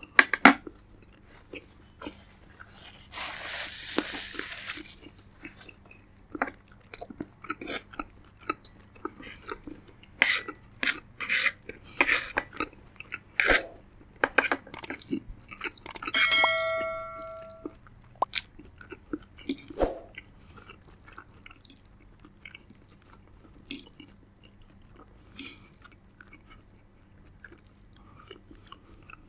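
Close-up eating sounds: a person chewing and crunching food, with many short crunches and wet mouth clicks. A two-second rush of noise comes a few seconds in, and a single ringing clink sounds just past the middle.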